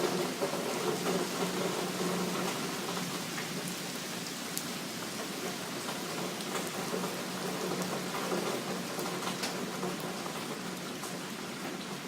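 Heavy rain pouring down steadily, with a few sharp drop ticks standing out and a faint low steady hum underneath.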